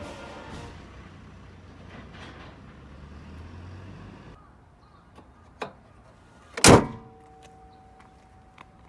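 A car door slams shut once, loud and sharp, about two-thirds of the way through. Before it, a low steady hum stops abruptly, and a small click comes shortly before the slam.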